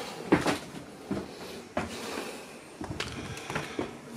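A few light, irregular knocks and clicks in a small cabin, from footsteps and handling as someone moves through the boat's galley.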